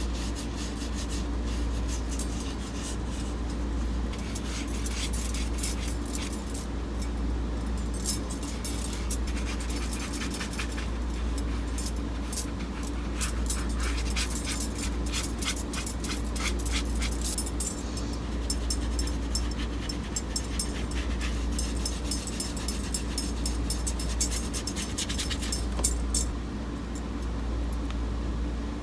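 Brush and paint work on watercolour paper: many small, irregular scratchy clicks over a steady low hum.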